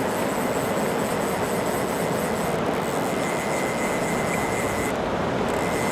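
A river's whitewater rapids rushing steadily.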